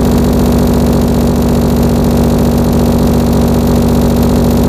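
Loud electronic bass sound: a steady, dense buzzing drone that holds one low pitch throughout.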